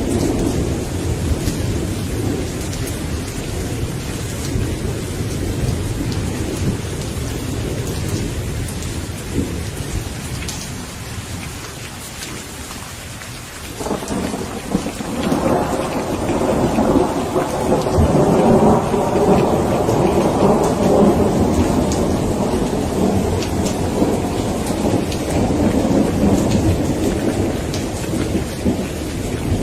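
Steady rain falling with rolling thunder. One rumble fades out just before the middle, then a new, louder roll of thunder starts about halfway through, swells a few seconds later and keeps rumbling.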